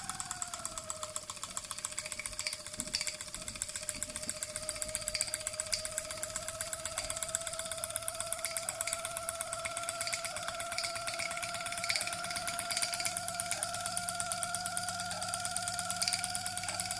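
Mamod Centurion model steam traction engine running with a fast, even chuffing beat while belt-driving a Blue Thunder generator, which gives a steady whine. The whine drops in pitch just after the start, then slowly climbs as the engine picks up speed.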